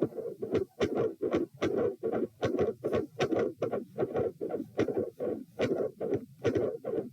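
Heart sounds picked up at the chest, with a loud, harsh whooshing murmur on each beat, pulsing two to three times a second. The sound jumps sharply louder right at the start.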